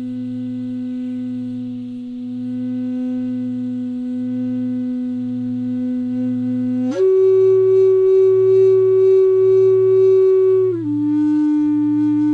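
Medicine flute playing slow, long held notes: one note held for about seven seconds, then a step up to a higher note, and a slight drop again near the end. A low tone pulses steadily underneath, and a faint high insect hiss fades out in the first half.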